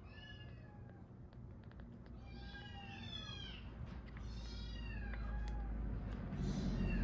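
Baby kitten mewing: several high, falling cries, the loudest about two to three seconds in, with small clicks between them.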